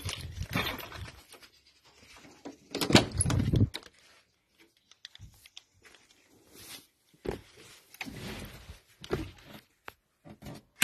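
Someone getting into the cab of a Peugeot 404 pickup: scattered clicks and rustling from the door and seat, with a loud knock about three seconds in and quiet gaps between. The engine is not running.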